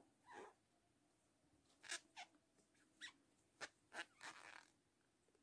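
Near silence broken by about seven faint, brief squeaks and rustles, spaced irregularly, from a metal crochet hook being worked through yarn.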